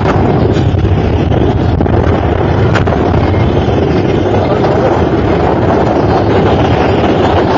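Loud, steady rumbling noise with wind buffeting the microphone; no single blast stands out.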